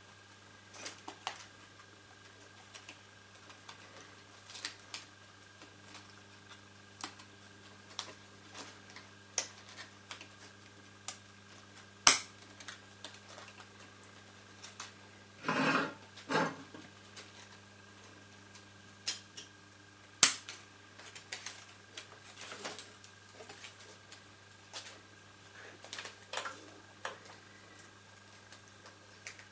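Film being threaded by hand through a Bell & Howell 8D 655 16mm projector: scattered clicks, taps and rubbing of film and metal parts, with two sharp clicks about eight seconds apart and a brief pair of scraping noises between them. A steady low hum runs underneath.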